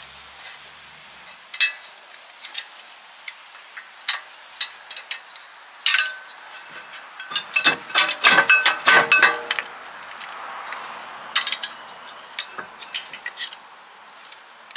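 Metal clicks, clinks and scrapes of a screwdriver prying press-on spring clips off the wheel studs of a car's rear brake disc. There is a dense run of louder clinks about six to nine and a half seconds in, and the metal rings briefly after each one.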